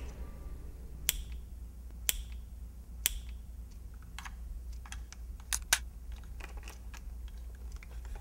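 Sharp clicks, the first four about a second apart like a clock ticking, then a scatter of quicker, fainter clicks, over a steady low hum.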